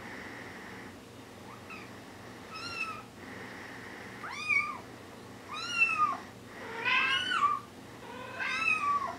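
Four-week-old Bengal kitten meowing repeatedly: about six short, high mews, each rising then falling in pitch, growing louder from about four seconds in.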